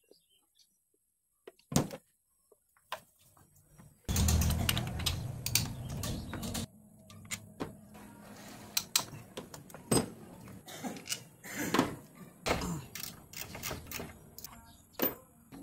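Scattered clicks and light metal knocks from hand tools working in a car's engine bay while the intake manifold is taken off. A low steady hum starts suddenly about four seconds in and continues under them.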